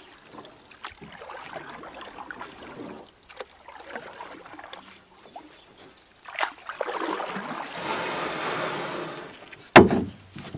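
Canoe paddling on a lake: water dripping and trickling off the paddle, a longer swishing stroke in the second half, and one sharp knock near the end.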